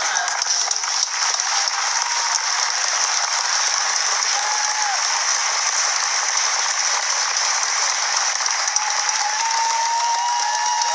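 Studio audience applauding, a steady, dense clapping that does not let up.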